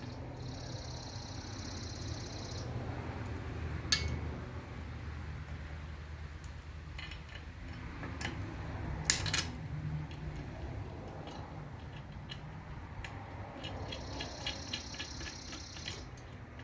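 Small steel hardware (bolts, washers and nuts) clinking and rattling as it is fitted to a steel shop-press frame. Scattered sharp metal clicks, two louder about 4 and 9 seconds in, and a quick run of ticks near the end, over a faint steady low hum.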